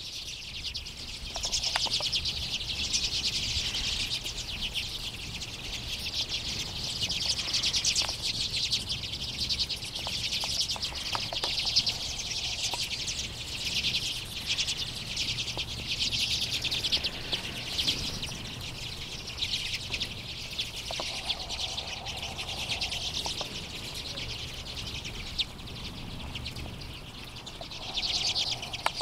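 A large winter flock of Common and Hoary Redpolls calling together: a continuous, dense chatter of rapid high-pitched calls that swells and eases.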